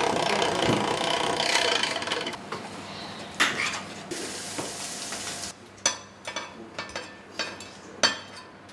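Kitchen utensil sounds: a dense clatter and hiss at first, then a metal utensil knocking against a stainless steel pan about twice a second.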